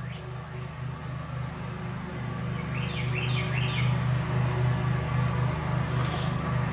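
A steady low mechanical hum that slowly grows louder, with a brief run of high bird chirps about three seconds in.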